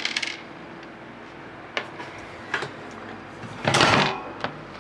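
Handling noises as the opened fan heater and its loose metal bits are moved about: a short rattle at the start, a few light clicks, and a brief scraping clatter about three and a half seconds in.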